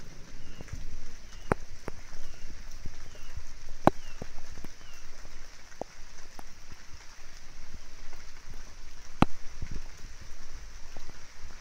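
Rain falling in a thunderstorm: a steady hiss with scattered sharp taps of single drops close by.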